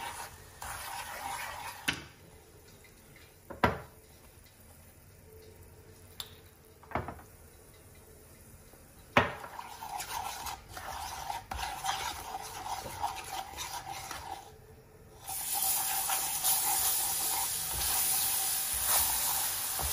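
Wooden spatula stirring and scraping around a granite-coated frying pan of foaming melted butter, which sizzles. There are three sharp knocks of the spatula on the pan in the quieter middle stretch, and the sizzling and stirring grow louder near the end.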